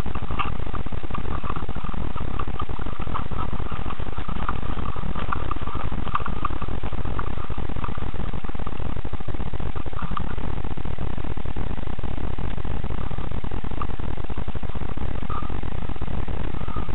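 Steady rumbling noise from a cheap action camera's poor microphone, with faint short chirps scattered through the first half.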